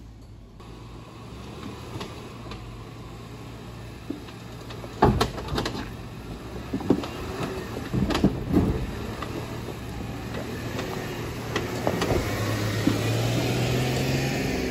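Jeep Wrangler crawling slowly over trail rocks, its engine running low and steady, with a run of sharp clunks and knocks as it works over the rocks about five to nine seconds in. The engine grows louder near the end as the Jeep comes up close.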